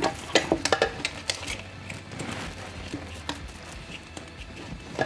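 Small clicks and rustles of hands handling a plastic film developing reel and scissors inside a fabric changing bag, with a cluster of sharp clicks in the first second and a half and quieter ticking after.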